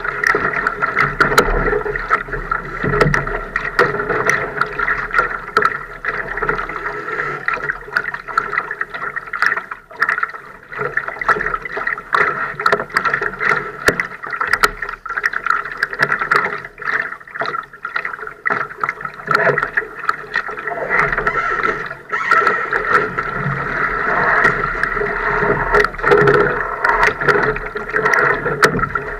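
Water splashing and gurgling along the hull of a Laser sailing dinghy under way, with many small knocks and clicks from the boat.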